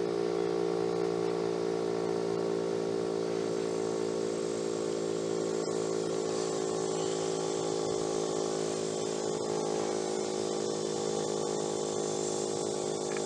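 Federal Signal STH-10 outdoor warning siren sounding a loud, steady tone during its test, holding one pitch throughout.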